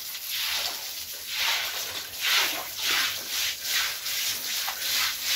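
Stiff brush scrubbing the wet floor of a cow pen, rhythmic swishing strokes about two a second.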